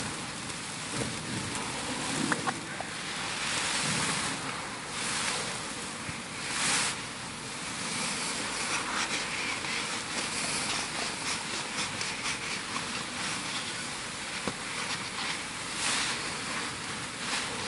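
Steady hissing room noise in a church, swelling and fading a little, with a few faint knocks and rustles.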